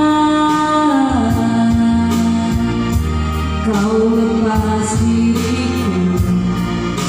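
A song playing: a voice holds long, sliding sung notes over a backing of bass and keyboard.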